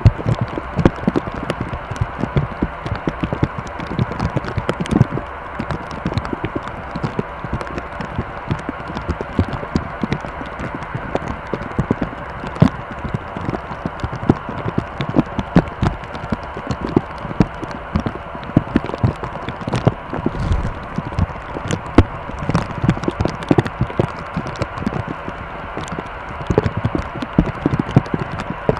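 Airbus A319-112 jet airliner running with a steady engine hum, overlaid by many irregular sharp knocks and rattles.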